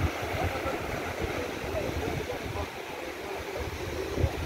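Sea surf washing on a sandy beach under gusty wind buffeting the microphone, with faint men's voices and a short thump near the end.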